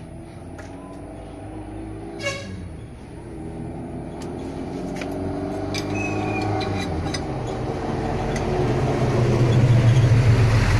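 A motor vehicle's engine running and growing steadily louder, with a single sharp metal clink about two seconds in.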